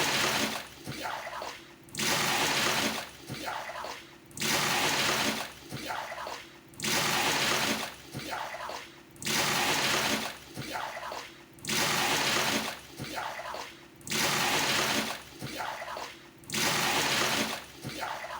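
Water scooped with a hand dipper from a traditional Indonesian bathroom water tub and poured out, over and over: each pour is a loud splash of about a second, trailing off into a quieter drip before the next scoop, about once every two and a half seconds.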